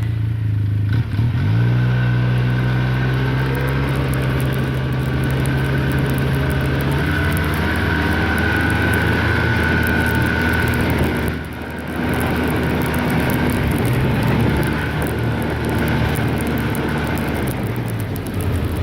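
Snowmobile engine revving up about a second and a half in, then running steadily under load as it tows. It eases off briefly partway through and revs up again near the end.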